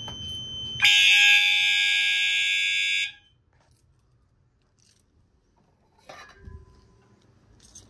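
Fire alarm set off with the test button on an i3 smoke detector, the system in walk test: a faint beep, then about a second in a loud, steady, high-pitched alarm tone that cuts off abruptly after about two seconds. Faint knocks and handling noise follow.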